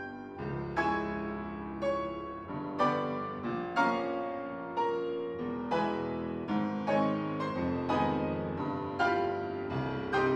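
Solo piano playing a slow classical piece. Notes and chords are struck roughly once a second, each ringing and fading, over held low notes in the bass.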